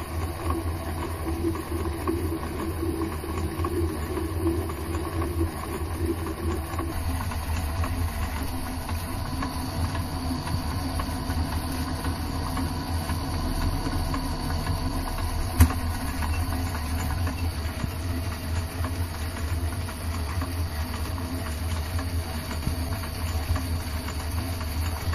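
Mini lathe running steadily with the chuck spinning while a tool turns a small steel shaft. A single sharp click is heard about fifteen seconds in.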